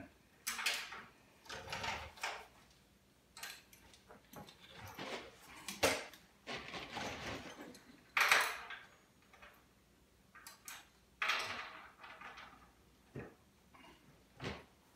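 Intermittent metallic clinks, clunks and short scrapes from a wrench working the upper control arm bolts of a Mustang II independent front suspension, as the bolts are loosened and the A-arm is shifted to set caster and camber.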